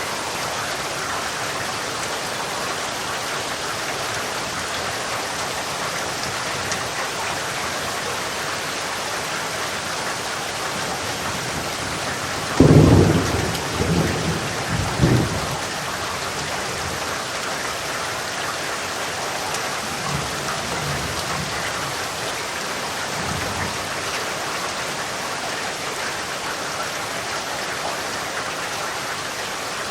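Steady rain falling, with a clap of thunder a little before halfway through that rolls on for about three seconds, and fainter rumbles of thunder some seconds later.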